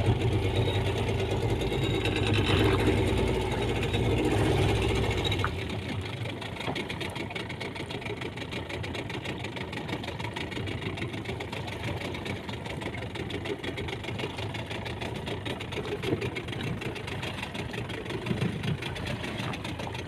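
Fishing boat's engine running with a steady low drone that drops away sharply about five seconds in, leaving a quieter, even running noise.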